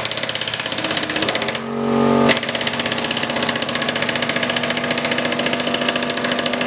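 Ingersoll Rand pneumatic impact wrench cranking a car scissor jack to lift the car, hammering in a rapid, steady rattle. About two seconds in it briefly changes to a smoother whine, then the hammering resumes.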